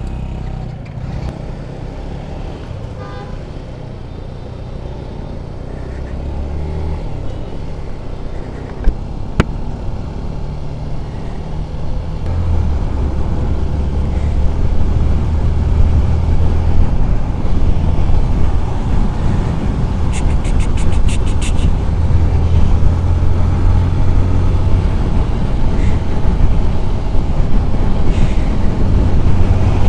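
Yamaha FZ 2.0's single-cylinder engine pulling away and building speed, with wind rumble on the helmet-mounted mic getting steadily louder as the bike goes faster. A brief rapid high-pitched pulsing sounds about two-thirds of the way in.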